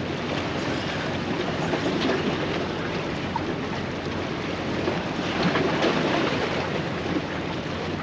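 Wind rushing across the microphone with waves washing against the jetty rocks, a steady noise.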